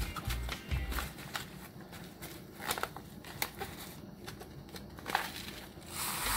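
A foil soup-mix packet crinkling and crackling as it is handled and opened, with scattered small clicks. Near the end a soft hiss as the dry mix is poured into a glass measuring cup of hot water.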